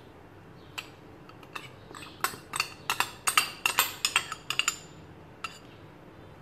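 A spoon clinking and tapping against bowls as tamarind chutney is spooned into a glass bowl of chaat. The quick run of sharp clinks starts about a second in, is thickest in the middle, and stops near the end.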